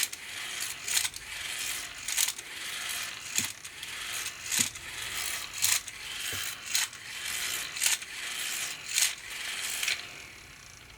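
Hand-powered plastic fan mechanism whirring and ratcheting, with a sharp click about once a second; it winds down near the end.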